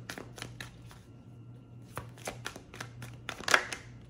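A tarot deck being shuffled by hand, packets of cards flicked and tapped together in quick runs, with a pause about a second in and the loudest rustle about three and a half seconds in. A faint steady hum lies underneath.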